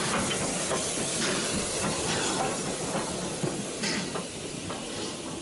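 Ivatt Class 2 tank steam locomotive moving slowly past at close range, a steady hiss of steam with a few metallic clanks.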